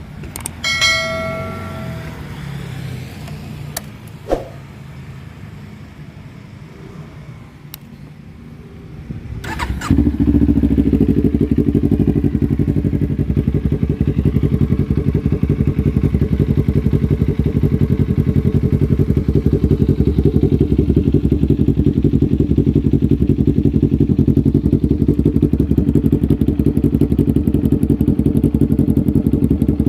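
Kawasaki Ninja 400's parallel-twin engine, fitted with an Akrapovic full exhaust, is started about ten seconds in and then idles steadily and loudly. Before it catches there are quieter low sounds, with a short tone about a second in and a click a few seconds later.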